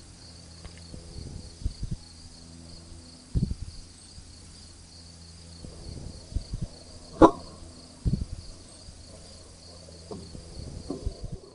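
A single sharp shot from an Edgun Matador PCP air rifle about seven seconds in, followed by a fainter knock about a second later, over a steady chirring of crickets.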